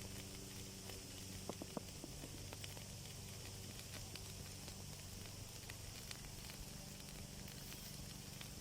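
Faint crackling of a wood fire burning in an outdoor masonry fireplace: scattered sharp pops and snaps over a soft hiss, with a steady low hum underneath.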